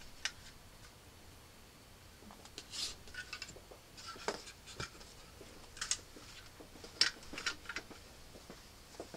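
Light clicks, taps and short scrapes of chrome-finished car side fender trim pieces being picked up, moved and set down on a tabletop by hand, a dozen or so small handling noises spread irregularly.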